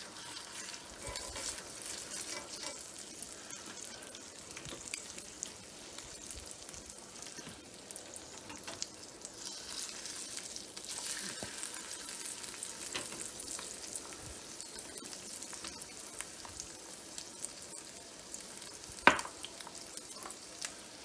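An egg sizzling in hot bacon grease in a cast-iron skillet, a steady frying hiss, with scrapes of silicone spatulas as the egg is lifted and flipped. A single sharp knock sounds near the end.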